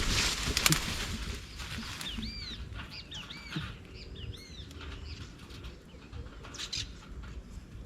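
A bird's wings flapping briefly at the start, then a quick run of short, high, arched chirps about two to four seconds in.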